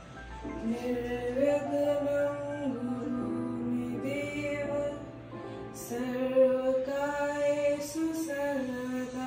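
Slow devotional song: a singing voice holding long notes that step up and down in pitch.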